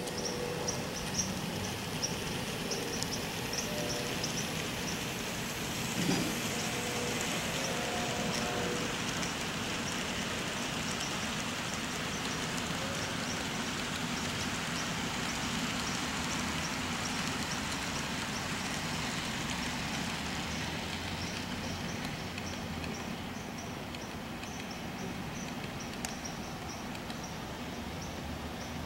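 N scale model trains running on the layout track: a steady hissing run noise of small motors and wheels, with a light ticking about three times a second and a few short faint tones in the first several seconds.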